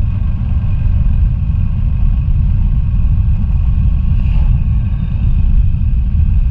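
Motorcycle being ridden at a steady pace, its engine running under a heavy, steady wind rumble on the microphone.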